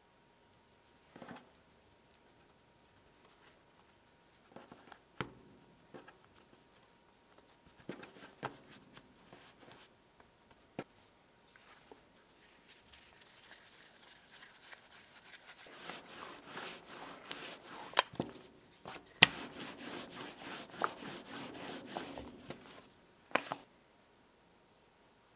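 Hands handling floured paratha dough on a countertop with soft taps and pats. Then a wooden rolling pin rolls the dough out flat for about ten seconds: a continuous rubbing with sharp knocks, ending in a knock just before the end.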